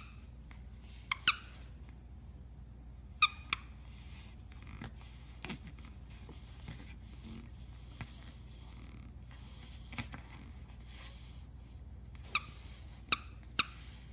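A squeaky plush toy squeaking in short, sharp squeaks as two pugs mouth it: two quick squeaks about a second in, two more a couple of seconds later, then three near the end.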